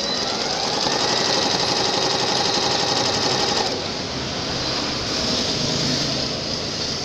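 Brother electric sewing machine stitching, its motor whining up to speed about a second in and the needle clattering in a fast even rhythm; it eases off a little past halfway.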